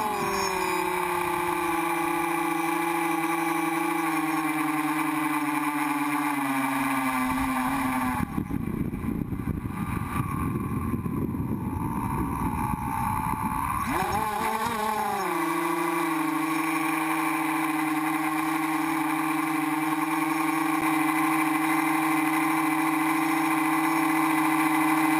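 The T copter's brushless outrunner motors and propellers whining in flight. Over the first several seconds the pitch glides down as the throttle comes off. Between about 8 and 15 seconds a rough rushing noise swamps the whine, then the pitch rises and holds steady as the copter descends toward the houses.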